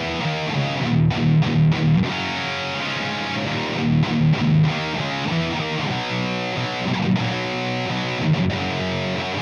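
High-gain distorted electric guitar through a PRS Archon amp simulation, played alone: a chugging low-string riff with short stops between phrases and some held chords. The tone is thin and harsh, called 'really horrible', because it was set only to fill in frequencies missing from another amp sound.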